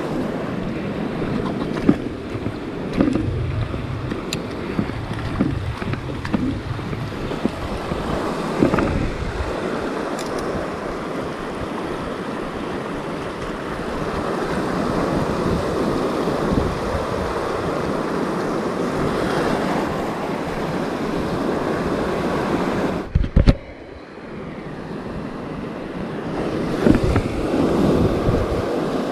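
Surf washing and breaking over a rocky reef flat, with wind buffeting the microphone. There is a sharp bump about three-quarters of the way through.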